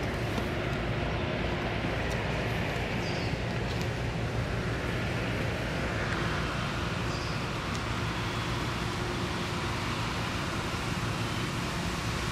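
Steady low rumble of distant road traffic, even throughout with no single vehicle standing out.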